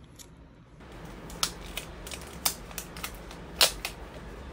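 Plastic packaging crackling and tearing as a sealed item is opened by hand: a string of separate sharp crinkles, the loudest about two thirds of the way through.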